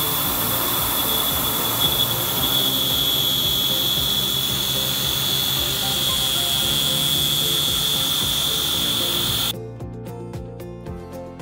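Tormach PCNC 770 CNC mill's spindle and end mill cutting a metal block: a steady high-pitched whine over a noisy hiss. About nine and a half seconds in, it cuts off abruptly and quieter background music with a regular beat takes over.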